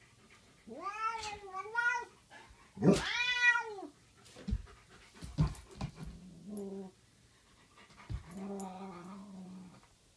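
Northern Inuit dog vocalising: a few drawn-out, rising-and-falling whining howls, the loudest about three seconds in. These are followed by a few low thumps and then lower, drawn-out grumbling calls.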